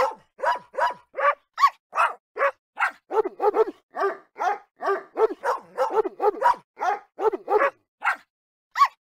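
Rapid series of short dog barks, about three a second, some higher-pitched and some lower, thinning out near the end.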